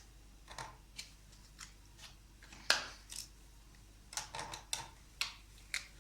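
Light clicks and taps of plastic toy-kitchen pieces being handled, scattered and irregular, with a sharper knock about two and a half seconds in and a quick run of clicks after four seconds.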